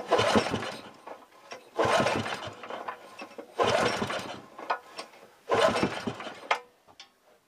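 Honda GX160 single-cylinder engine cranked four times on its recoil pull-start, about two seconds apart. Each pull is a second-long whir of rope and turning engine that never fires: cranking it over for a compression gauge test.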